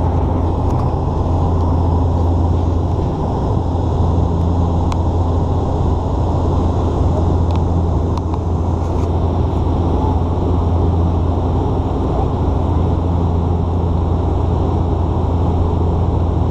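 Cabin drone of a Bombardier Dash 8 Q400's Pratt & Whitney PW150A turboprops and six-bladed propellers, heard from a window seat: a steady, loud, low propeller hum over a constant rush of air.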